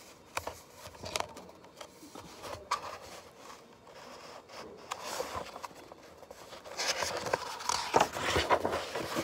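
Hands handling a picture book: scattered light taps and paper rubbing, then a louder rustle and scrape as a page is turned over in the last couple of seconds.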